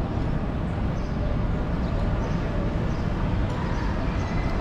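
Outdoor city ambience: a steady low rumble with a few faint, short high chirps.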